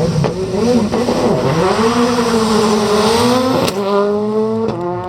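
Ford Focus World Rally Car's turbocharged four-cylinder engine revving, rising and falling in pitch, then climbing steadily as the car pulls away, with a few sharp pops near the end.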